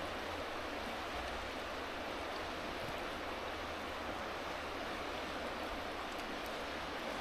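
Fast-flowing river rushing steadily, a constant whooshing water noise.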